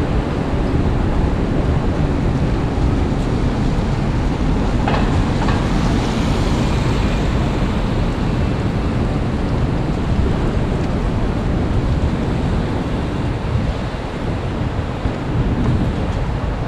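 Loud, steady city street noise in the rain: traffic rumble under a constant wash of rain, with a couple of short knocks about five seconds in.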